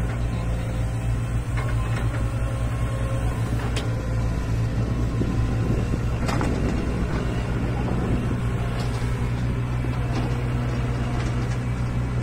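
Excavator's diesel engine running steadily with a deep, even drone, with a brief clank about six seconds in.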